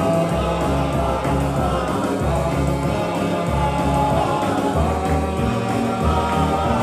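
Four-man vocal group singing in harmony through microphones, one lead voice over the others' parts, with low bass notes moving in steps underneath.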